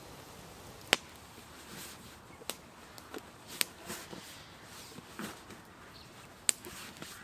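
Wood campfire crackling, with four sharp pops standing out above a low hiss and a few softer rustles between them.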